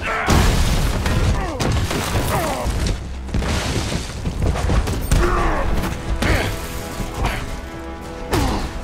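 Film fight-scene sound mix: dramatic score music under a series of heavy impacts, crashes and thuds, as in bodies hitting walls and armoured punches landing.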